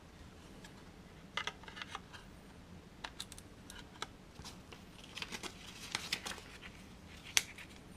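Small plastic clicks and taps of handling as a 2.5-inch SSD is fitted into a tool-less plastic drive enclosure, with some soft rustling in the middle and one sharp click near the end.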